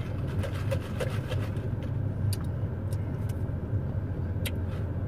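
Car engine idling with the air conditioning running, heard inside the cabin as a steady low hum. Scattered small clicks come from iced drinks being sipped through straws.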